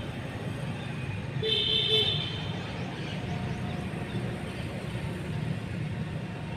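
A vehicle horn honks once, about a second and a half in, for under a second, over a steady low background hum.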